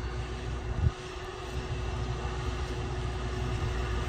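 Farm tractor engine running with a steady low drone as it pulls a tillage implement across the field, with a brief thump about a second in.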